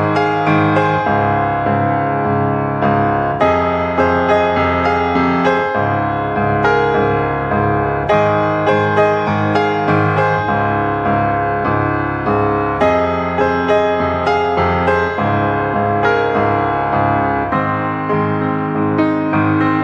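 Background piano music, one struck note after another.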